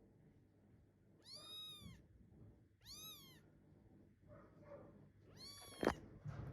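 Tiny Munchkin kitten meowing three times, high-pitched calls that rise and fall, crying for its absent mother. A sharp click near the end is the loudest sound.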